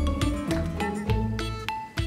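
Background music: a light melody of separate plucked, chiming notes over a bass line.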